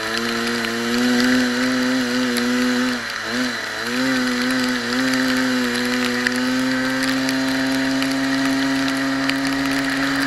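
Kart engine running at high revs, heard from on board. About three seconds in the revs dip and waver briefly, then climb back and hold steady, rising slowly.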